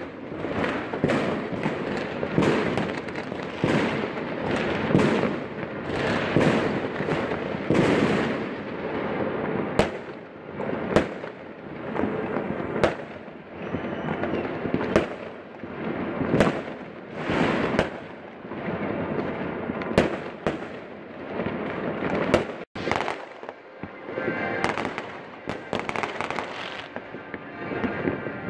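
Fireworks going off in many places at once: a steady din of crackling with frequent sharp bangs, one after another throughout.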